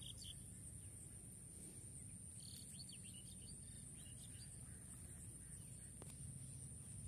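Faint riverside ambience: a steady high-pitched insect drone, with a few faint bird chirps between about two and a half and three and a half seconds in, over a low rumble.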